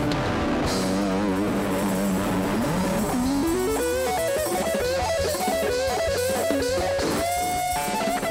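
A gospel rock band playing an instrumental passage. An electric guitar lead plays quick rising runs and wavering, bent notes over guitar, bass and drums, then holds a long high note near the end.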